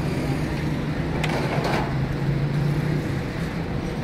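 Steady low rumble with a constant hum, with a few faint brief knocks around the middle.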